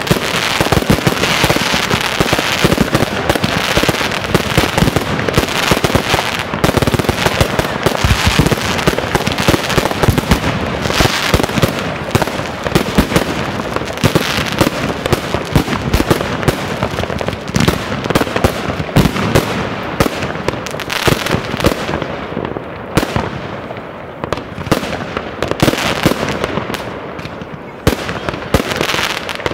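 Aerial fireworks going off in a dense, continuous barrage of bangs and sizzling crackle from bursting shells and crackling stars. The volley thins out a little over the last several seconds.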